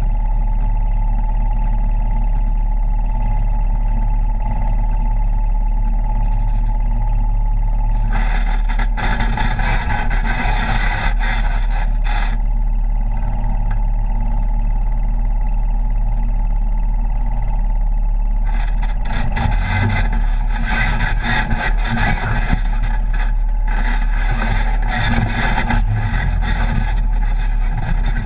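Polaris RZR side-by-side's engine running steadily while driving a rough dirt trail, heard from the cab. Louder rough trail and tyre noise comes in about eight seconds in for a few seconds, and again from about eighteen seconds on.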